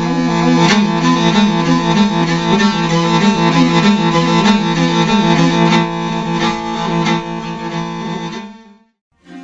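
A horsehead fiddle (morin khuur) being bowed: a running melody over a steady low drone from the second string. It stops abruptly about 8.5 seconds in, and after a short silence another sustained bowed-string sound begins right at the end.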